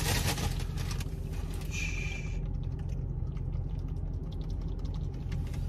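Steady low hum inside a car's cabin, with faint light clicks and a short hiss about two seconds in.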